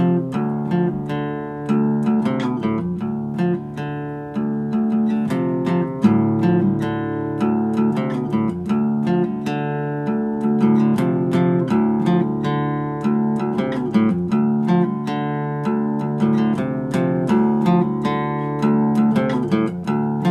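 Acoustic guitar music, plucked notes each ringing and dying away in a steady flowing pattern.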